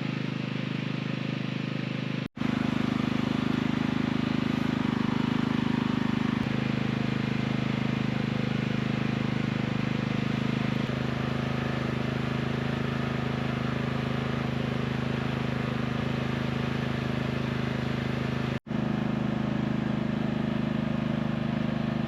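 Portable gas inverter generator (Efurden 4000 W) running steadily, a constant low engine hum with a steady pitch, dropping out for an instant twice.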